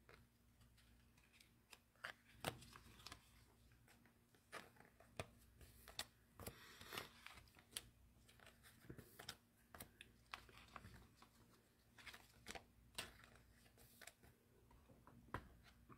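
Faint handling of trading cards and a crinkly plastic pack wrapper: scattered light clicks and taps, with a longer rustle about seven seconds in.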